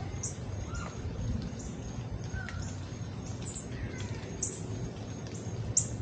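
Hummingbird giving short, very high chip calls several times, with a few lower, curving bird calls mixed in over a low, steady background rumble.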